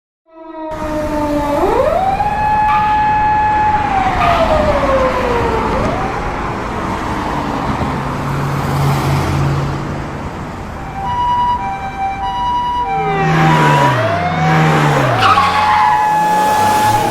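Police car siren wailing: the pitch rises, holds, then slides down, twice, over a steady rush of vehicle noise. In the middle, a two-tone hi-lo siren alternates for a couple of seconds.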